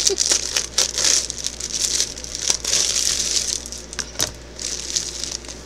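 Clear plastic packaging bag crinkling and rustling as it is cut open with scissors and pulled apart, busiest in the first couple of seconds, with one sharp click a little after four seconds.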